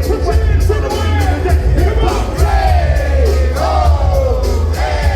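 Live hip-hop music played loud through a concert sound system, with a heavy bass beat and a crowd yelling along.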